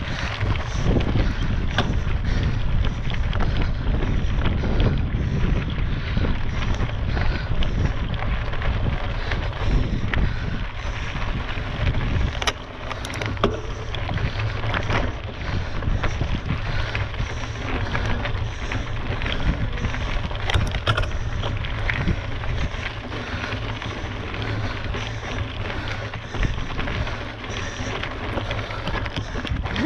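Wind buffeting a GoPro action camera's microphone during a mountain-bike ride, a steady rushing noise heaviest in the low end. Frequent small clicks and rattles from the bike run through it.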